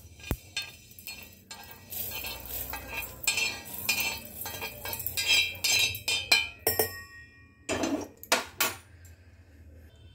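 A spoon scraping and clinking against a metal dish in quick, irregular strokes, as in stirring or mixing, with a few louder knocks near the end.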